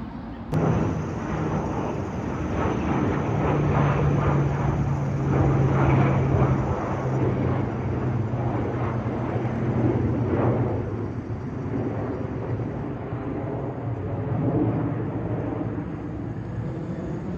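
Military airplane flying past, a steady low engine drone with a rush of engine noise that swells and then eases off. It starts abruptly about half a second in.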